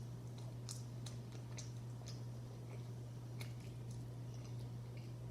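Close-up mouth sounds of a person chewing a spicy chicken sandwich: scattered wet clicks and smacks at irregular moments. A steady low hum runs underneath.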